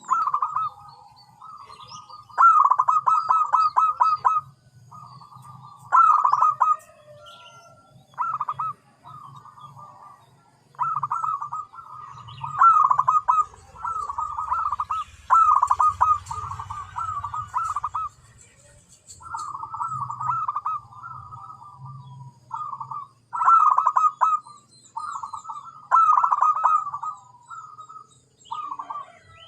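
Zebra dove (perkutut) cooing over and over in short rolling phrases, each a quick run of notes about a second long. Faint high chirps of other small birds sound now and then.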